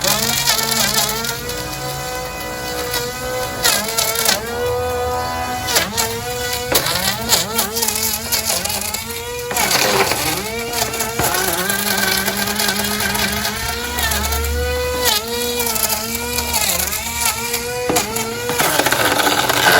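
Small electric motor of a hobby-built RC boat whining at high speed, its pitch rising and falling in repeated throttle bursts.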